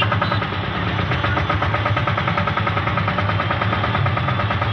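Vehicle engine idling in a traffic jam, running steadily with an even pulse.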